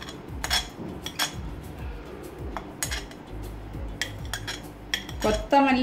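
Metal spoon clinking and scraping against a ceramic plate and the rim of a steel mixer-grinder jar as chopped green chilli and onion are pushed into the jar: a scattered run of sharp taps and clicks.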